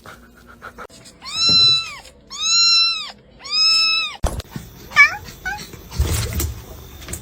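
A cat meowing three times in a row, each a drawn-out meow that rises and falls in pitch. A sharp knock comes right after the third meow, followed by a few shorter, quieter sounds.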